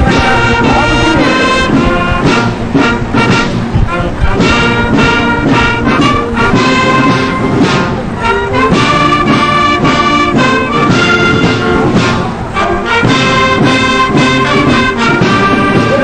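Brass band music: brass instruments playing a slow piece in held notes and chords.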